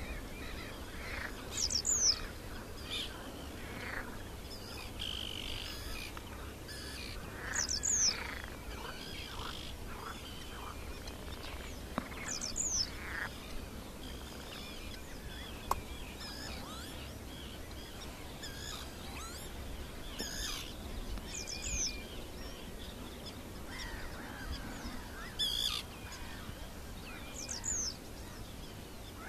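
Several wild birds calling: a sharp, high call that sweeps downward recurs about half a dozen times, with softer chirps and whistles between, over a steady low rumble.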